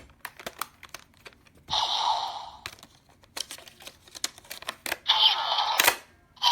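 Bandai DX Diendriver toy gun being handled: a run of sharp plastic clicks and snaps, with two short electronic sound effects from its speaker, about two seconds in and again about five seconds in.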